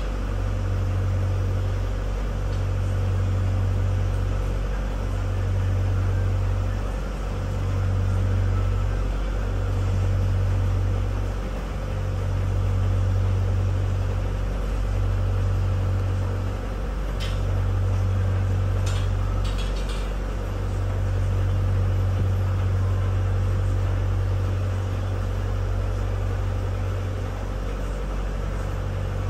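A motor launch's engine drones steadily, heard from inside the passenger cabin. The low hum swells and dips about every two seconds, and a few faint clicks come about halfway through.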